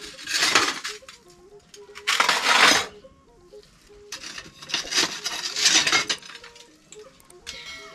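Broken ceramic tile offcuts clinking and scraping against each other as they are picked up and stacked by hand, in four separate spells.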